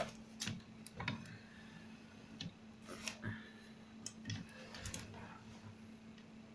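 Irregular light clicks and taps from small tools and laptop parts being handled, about a dozen spread unevenly over several seconds, over a faint steady electrical hum.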